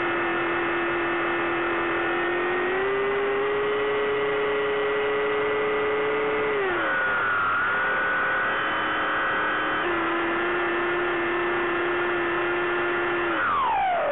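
Bixler 3 model plane's electric motor and propeller humming with a steady whine, heard from on board. Its pitch steps up slightly about three seconds in, dips around seven seconds in, comes back near ten seconds, and near the end falls away steeply as the motor slows.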